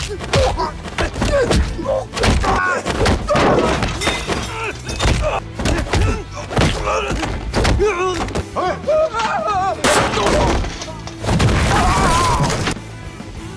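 Kung fu film fight soundtrack: a fast run of punch and kick impacts with shouts and grunts over dramatic score music, quieter near the end.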